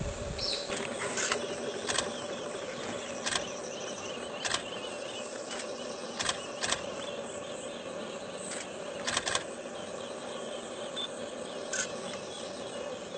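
Steady outdoor background hum with about a dozen short, sharp clicks scattered through it, some in quick pairs.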